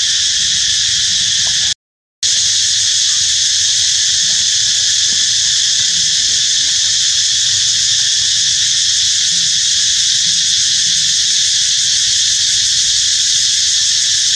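Loud, steady chorus of insects droning without a break. It cuts out completely for about half a second near the start.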